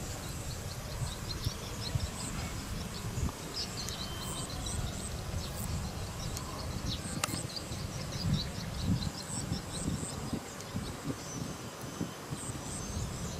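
Insects chirping in short, rapidly repeated calls over a steady low rumble.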